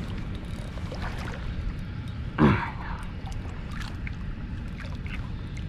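Steady low rumble of wind and water lapping around a kayak, with one short, loud sound about two and a half seconds in that falls in pitch.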